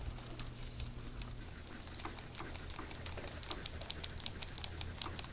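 Handheld soft-tissue scraping tool worked over oiled skin on the upper back, giving an irregular run of small crackly clicks that starts about two seconds in and grows denser, over a faint low hum.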